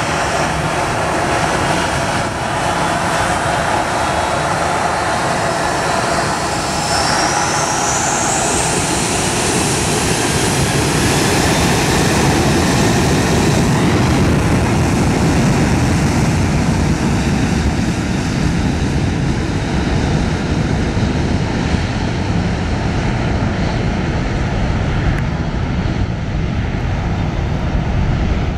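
Boeing 737-700's twin CFM56-7B turbofan engines spooling up to takeoff thrust: a whine climbs steeply in pitch about six to ten seconds in, then the engines run loud and steady at full power for the takeoff roll.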